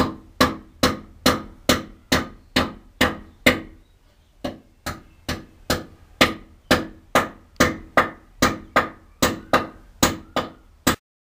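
Carpenter's hammer driving nails into a wooden support batten on a wall: steady blows about two a second, pausing for about a second partway through, then resuming until shortly before the end.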